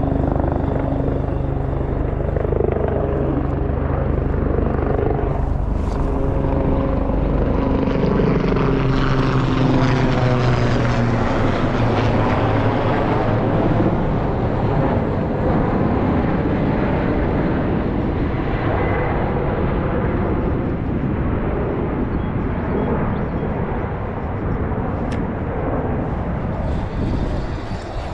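Low aircraft flying overhead. Its engine tones drop in pitch as it passes, it is loudest about ten seconds in, and it fades away toward the end.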